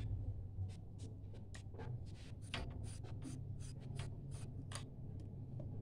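Spiral light bulb being twisted out of a plastic lamp socket: a run of short, irregular scrapes and clicks of the screw base turning in the socket, over a low steady hum.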